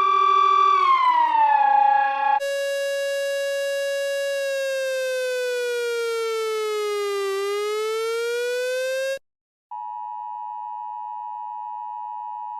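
Electronic emergency-alert tones: a siren-like tone gliding up and down, then a harsh buzzing tone that holds, dips in pitch and rises again. After a brief gap comes the steady two-tone Emergency Alert System attention signal.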